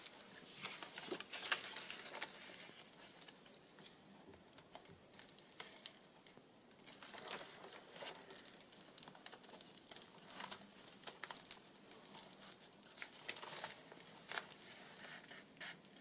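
Paper pages and inserts of a handmade junk journal being turned and handled. The sound is faint, irregular rustling and crinkling of paper, with small crisp ticks as pages and tucked cards are moved.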